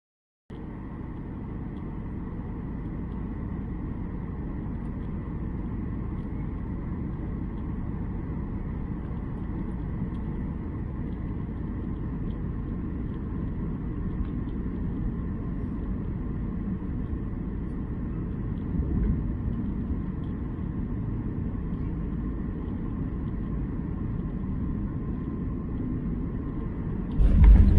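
Airliner cabin noise: a steady rumble of jet engines and airflow with a faint, steady high whine. About 27 seconds in, it suddenly grows much louder, with a deeper rumble and added hiss.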